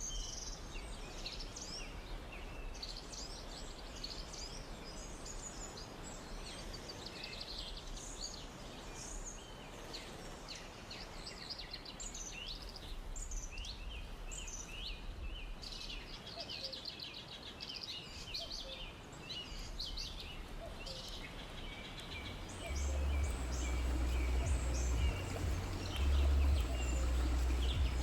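Many small birds chirping and trilling in a forest over a steady background hiss. About three-quarters of the way through, a loud low rumble comes in underneath.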